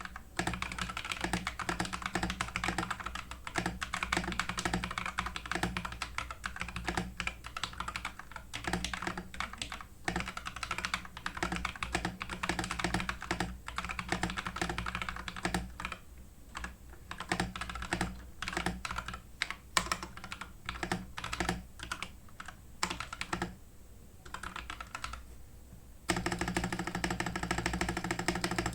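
TM680 65% mechanical keyboard being typed on rapidly, a dense, irregular run of key clacks. The typing thins to slower, spaced strokes about two-thirds of the way through, then turns dense and fuller near the end.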